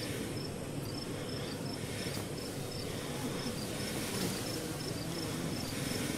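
An insect, likely a cricket, chirping steadily in short high notes, a little more than two a second, over a low steady rumble of background noise.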